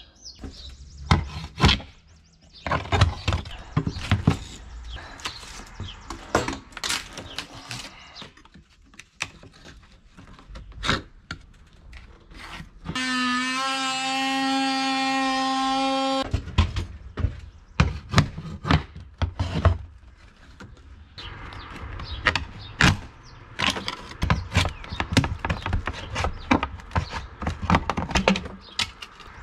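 Cedar shake siding being worked off and fitted by hand: a long run of irregular wooden knocks, cracks and scrapes. About halfway through, a cordless power tool runs steadily for about three seconds.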